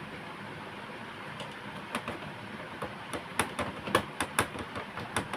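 Sharp clicks and taps of a screwdriver and small screw being fitted back into a printer's chassis, coming several a second from about halfway in.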